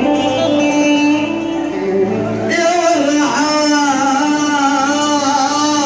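Arabic mawwal: an instrumental melody of held notes, then about two and a half seconds in a man begins singing a long, wavering, ornamented note over the accompaniment.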